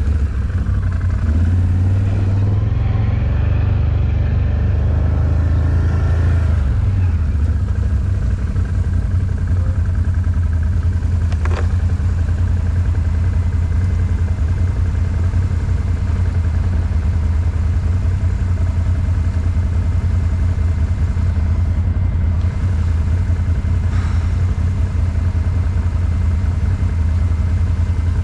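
ATV engine running at low revs, the revs rising and falling a little in the first several seconds, then holding steady, with a couple of short clicks.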